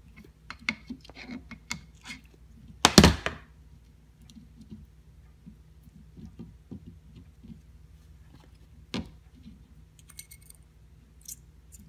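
Small steel ratchet parts clicking and clinking as a grease-packed ratchet head is put back together by hand, with a louder knock about three seconds in and another sharp click near nine seconds.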